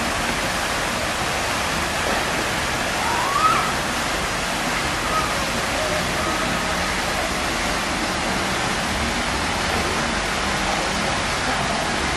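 Steady rush of flowing spring-fed stream water, with a brief faint rising call about three seconds in.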